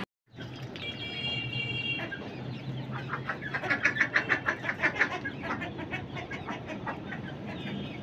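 Chickens clucking, with a quick run of loud clucks, about five or six a second, for some two seconds in the middle, over a low steady hum.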